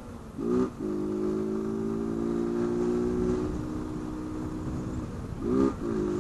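Honda CG Fan 160's single-cylinder engine running at a steady, unchanging pitch, with its air-intake snorkel removed.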